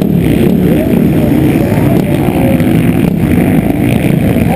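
Motocross bike engine running hard under the rider, its pitch rising and falling as it is revved, buried in a heavy wind rumble on the helmet-mounted microphone.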